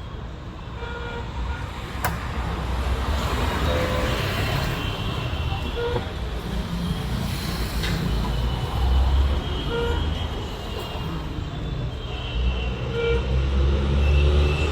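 Road traffic rumbling, growing louder, with short beeps every few seconds.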